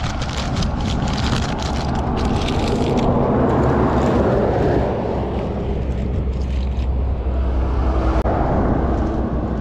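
A motor vehicle passing on the road: its noise swells to a peak a few seconds in and eases off over a steady low rumble. Light crackling clicks are heard in the first couple of seconds.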